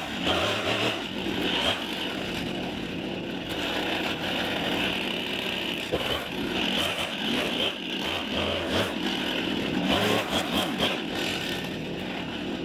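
Gas chainsaw running at the base of a white pine, revving up and dropping back as it cuts into the trunk to fell the tree.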